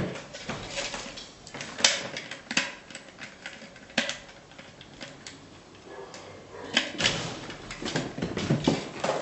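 Irregular clicks and light knocks from blood-draw equipment being handled during a venipuncture, spaced unevenly with a few close together near the end.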